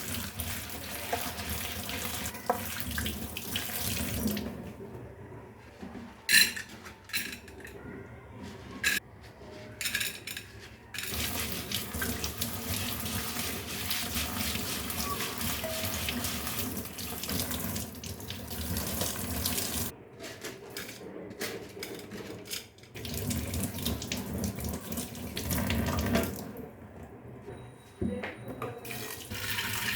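Kitchen tap running into a sink in several stretches, turned off or interrupted a few times, with a few sharp knocks in one of the pauses.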